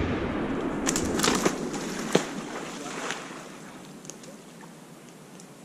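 Noisy splashing and sloshing of water that fades away steadily over several seconds, with a few sharp clicks scattered through it.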